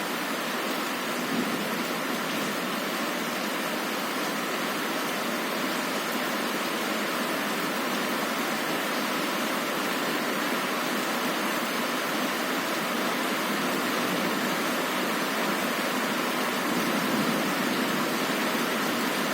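Heavy rain falling on a window, a steady even hiss with no breaks.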